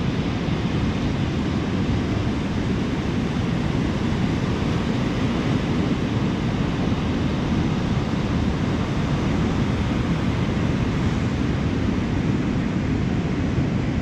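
Ocean surf breaking on a sandy beach: a steady, continuous wash of waves with a deep rumble and no distinct single crashes.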